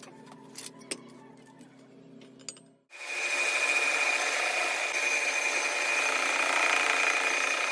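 A few light clicks over a low hum, then about three seconds in a power tool starts and runs steadily with a high whine.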